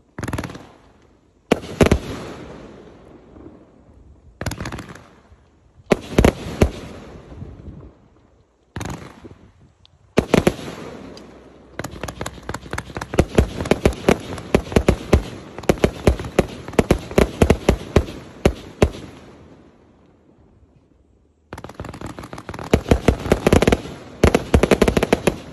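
A 1.2-inch, 100-shot fireworks cake firing: short volleys of sharp launch reports and bursts, then a long rapid barrage in the middle, a pause of a couple of seconds, and another fast run near the end. A thin high hiss runs along with each volley.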